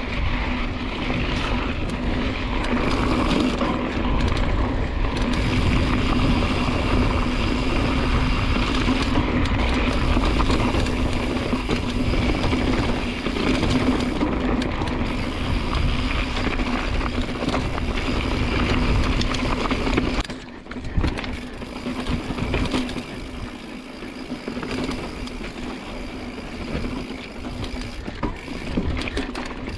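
Mountain bike ridden over rough, rocky trail: the bike rattling and the tyres crunching over stones, with rushing wind noise and a steady low hum under it. It gets quieter about 20 seconds in.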